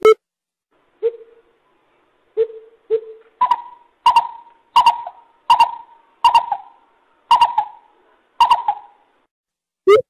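Greater coucal calling. It gives three low hoots in the first three seconds, then a run of about seven higher, sharper notes spaced under a second apart, each one trailing off.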